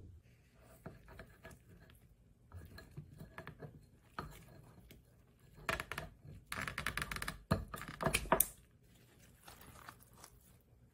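Kitchen scissors snipping the string tied around a cloth bundle, with the cloth rustling as it is handled and opened. The snipping and rustling come loudest from about six to eight and a half seconds in.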